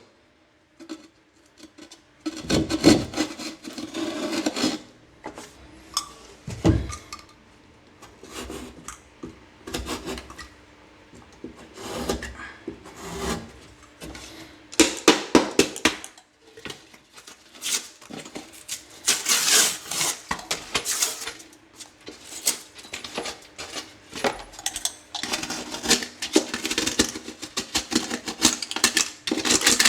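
Keyhole drywall saw cutting holes for pipes through a drywall patch: bursts of quick rasping back-and-forth strokes with short pauses between them.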